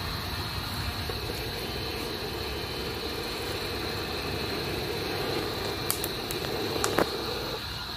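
A wood fire roaring with a steady rush as it is worked, sparks flying, with a few sharp pops and crackles about six and seven seconds in.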